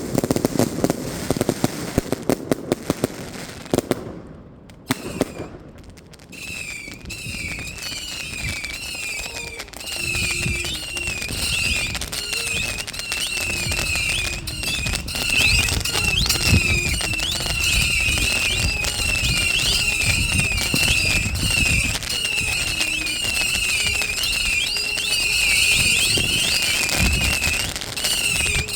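New Year's Eve fireworks: a dense run of crackling reports at first, then, after a short lull, scattered bangs and thuds go on under a rapidly repeating high-pitched chirping.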